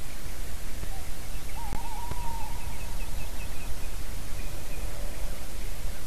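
Male tawny owl hooting: a short note, then a quavering hoot that wavers and then holds steady, about a second and a half in, over a steady hiss. A small bird gives a quick run of short high notes just after.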